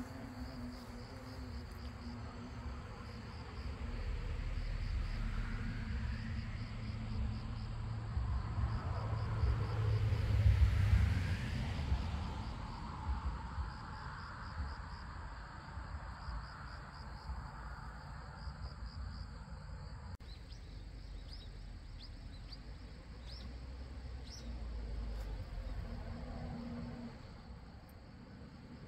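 Insects chirping in a steady, evenly pulsing high chorus over a low outdoor rumble that swells and fades around the middle. After a cut about two-thirds in, the chorus changes and a few sharper chirps stand out.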